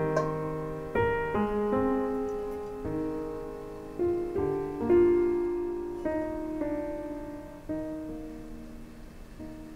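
Slow, gentle solo piano background music: single notes and soft chords, each struck and left to ring out. It dies away toward the end.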